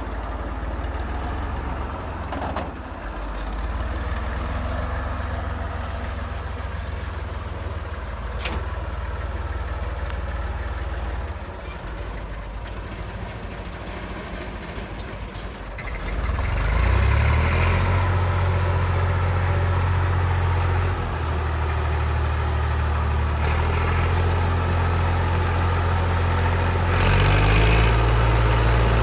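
IMT 542 tractor's diesel engine running at low revs, then revving up about halfway through and running louder and higher, with a further rise in revs near the end.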